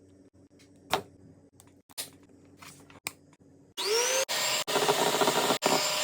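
A few light knocks, then about four seconds in an electric kitchen mixer switches on: its motor whine rises as it spins up, then it runs loudly and steadily, as when beating eggs for a sponge cake.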